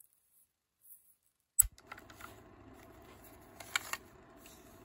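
Sharp clicks and small rattles from handling a Daisy Beretta BB pistol: one loud click about a second and a half in, a few lighter clicks after it, and a quick cluster of clicks near the end. A faint steady hum runs underneath from the first click on.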